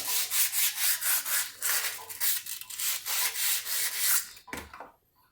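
100-grit sandpaper rubbed back and forth on a washing machine's drum shaft, about three rasping strokes a second, cleaning the shaft so the bearing can be knocked off. The sanding stops near the end, followed by one short knock.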